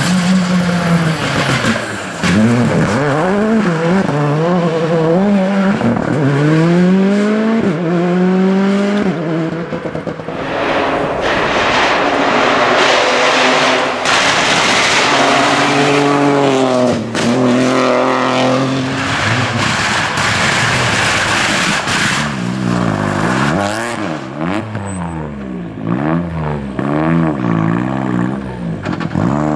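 Rally cars, a Citroën C3 Rally2 and Peugeot 208 rally cars, passing one after another at speed, engines revving hard and rising in pitch through each gear, then dropping on the shifts and braking. Sharp cracks from the exhaust and tyre noise come in between the passes.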